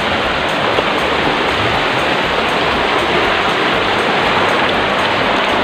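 Shallow rocky creek rushing steadily over stones, a loud, even wash of running water.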